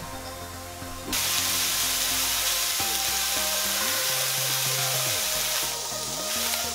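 Broccoli and red pepper pieces sizzling as they fry in a pan, a loud steady hiss that starts abruptly about a second in. Light background music plays throughout.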